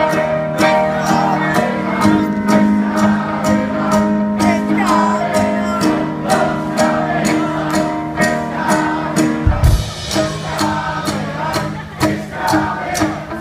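Live rock band playing drums, electric guitars and bass, with a steady beat of about two strokes a second and voices singing along. A single deep thump stands out about nine and a half seconds in.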